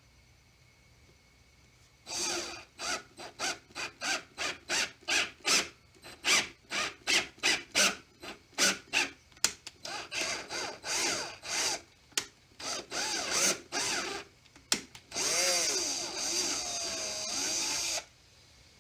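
Electric drill run in quick trigger pulses, about two a second, its motor speeding up and slowing with each one, then held for a longer run of a few seconds near the end before stopping abruptly.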